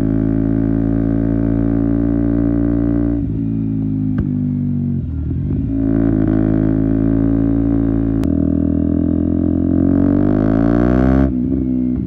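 KTM Duke 125's single-cylinder engine through an Akrapovic exhaust, ridden on the road. It holds steady revs, eases off and picks up again around five seconds in, and climbs in pitch for about two seconds near the end before dropping suddenly.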